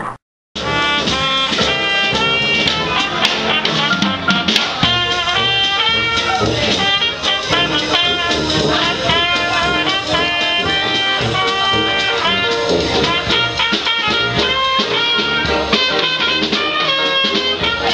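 Dixieland jazz band music with trumpet and other brass playing a bouncy swing melody, starting about half a second in after a brief silence.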